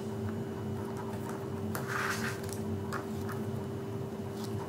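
Faint handling of double-sided tape on a paper card panel: tape laid down and pressed, with a short rustle about two seconds in and light clicks, over a steady hum.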